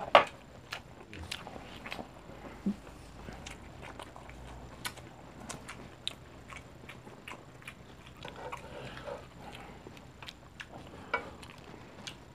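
People eating: chewing and biting sounds with scattered sharp clicks, the loudest just after the start.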